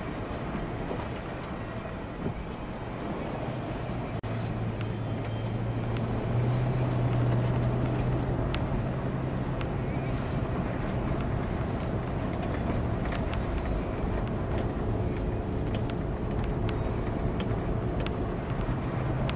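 Toyota FJ Cruiser's 4.0-litre V6 running at low road speed, heard from inside the cabin, together with the noise of mud-terrain tyres on a wet, muddy dirt road. Scattered light clicks and knocks come through over the drive, and the engine hum rises a little about six seconds in.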